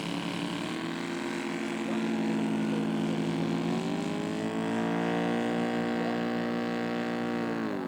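Radio-controlled scale model airplane's Laser 200 four-stroke engine in flight: a steady drone that rises in pitch about four seconds in, then drops sharply near the end as the plane passes by.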